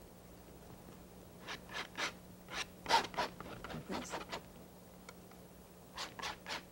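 Steel palette knife scraping and spreading oil paint across a canvas in short, quick strokes. A run of strokes is followed by a short lull, and more strokes come near the end.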